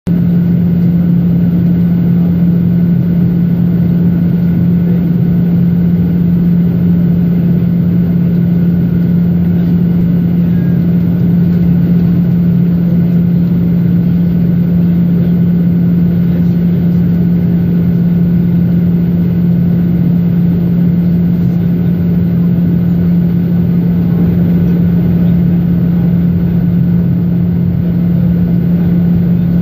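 Inside the cabin of a Boeing 737 airliner on its landing approach: the steady drone of its CFM56 turbofan engines and the rush of air past the fuselage, with a strong low hum.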